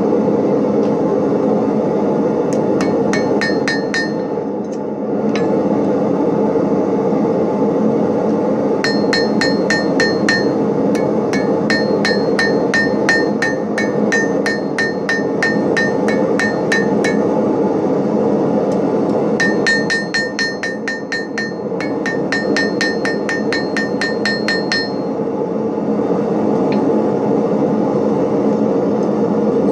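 Hand hammer striking hot steel on an anvil in three runs of quick, even blows, each blow ringing with a high metallic anvil tone. A steady low rumbling noise runs underneath.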